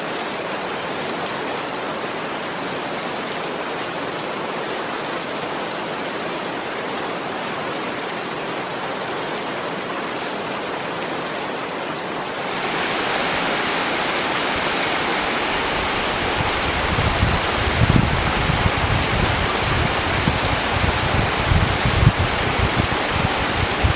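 Steady rainfall that grows heavier about halfway through. In the last third, irregular low thuds come in under the rain.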